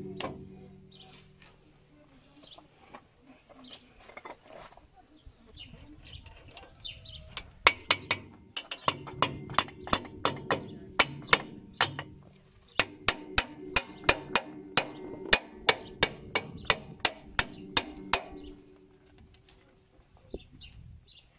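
Steel wheel-hub housing on a Cat 434E backhoe loader's front axle being struck with a hammer: sharp, ringing metallic blows about twice a second, in two runs with a short pause between. Quieter handling and scraping of the hub comes before the blows.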